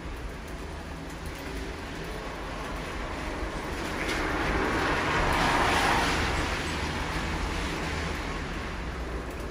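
A car passing on a rain-soaked road, its tyre hiss swelling, loudest a little past the middle, then fading, over steady falling rain.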